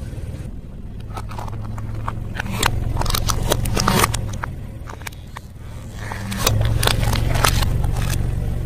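Car engine running low and steady while its tyre rolls over and crushes plastic cups and small plastic objects, with many sharp cracks and crunches of breaking plastic. The engine gets louder about two-thirds of the way through.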